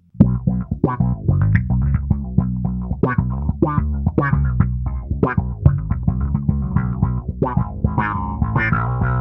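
Fender Precision bass played through an EarthQuaker Devices Spatial Delivery envelope filter into a Fender Bassman amp and 4x10 cabinet. It plays a busy run of plucked notes, about three or four a second, and each note opens into an auto-wah sweep.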